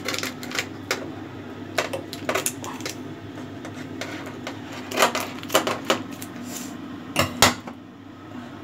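Kitchen clatter: irregular clinks and knocks of dishes and utensils being handled, with two louder knocks close together near the end.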